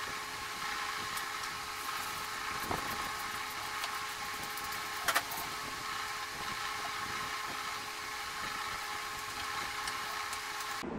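A machine running with a steady, even hum made of several held tones. Two brief knocks cut through it, the louder one about five seconds in, and the hum stops abruptly just before the end.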